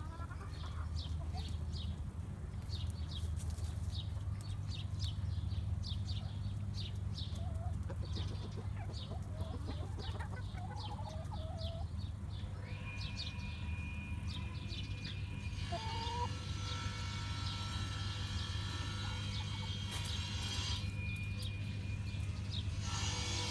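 Chickens clucking softly over a steady low hum, with a short high chirp repeating about twice a second through the first half.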